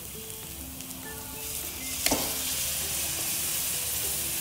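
Cooked-down tomato masala sizzling in oil in a metal kadhai. About two seconds in there is a sharp clink as cooked kidney beans go into the pan, and the sizzle grows louder and stays up.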